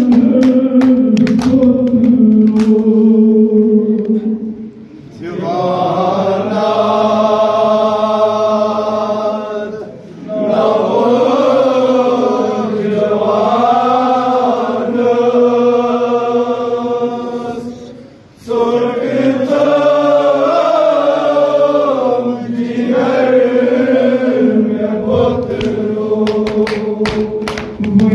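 Male voices singing a Kashmiri noha, a Shia lament, led by a reciter on a microphone with a group singing along. The singing breaks off briefly three times. Sharp chest-beating slaps come in a rhythm during the first few seconds and again near the end.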